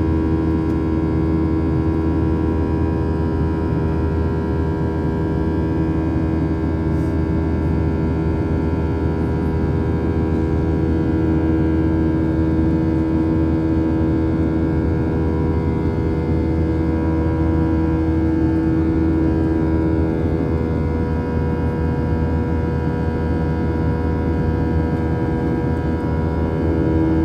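Cabin noise of a Boeing 737-700 in flight, heard from a window seat beside the wing: the CFM56-7B jet engines' steady drone with a hum of several steady tones over a low rumble. The strongest hum tone fades for a few seconds near the end.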